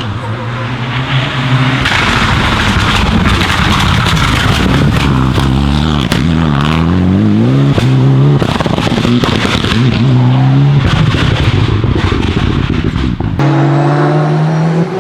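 Performance car engine revving up and down with many sharp exhaust pops and crackles through the revs. About 13.5 seconds in it cuts abruptly to a different engine revving, with a cleaner note.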